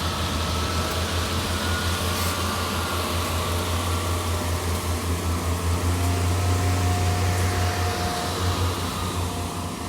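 Diesel engines of a British Rail Class 150 and Class 143 diesel multiple unit running, a steady low throb with a broad mechanical hum over it.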